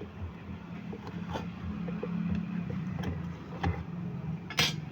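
Hand work on a sewing machine's foot pedal controller being taken apart: a few sharp clicks and knocks, the loudest near the end, over a steady low hum.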